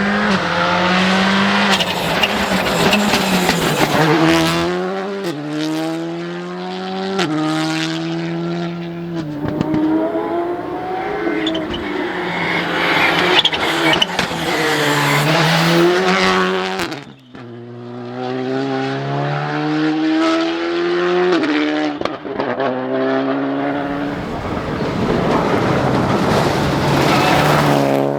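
Rally cars driven hard on a stage: engine pitch repeatedly climbs under full throttle and drops back at each gear change or lift. The sound breaks off briefly about two-thirds of the way through before another car takes over.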